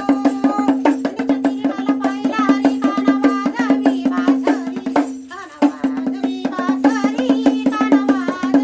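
Marathi Waghya devotional folk music: a sung melody over a steady single-note drone and fast, even clicking percussion, with a brief pause about five seconds in.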